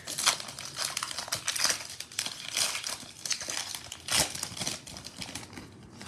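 Foil wrapper of a Panini Prizm football card pack crackling and crinkling as it is torn open and the cards are pulled out, with a dense run of sharp crackles. The loudest crackle comes about four seconds in, and the sound thins out near the end.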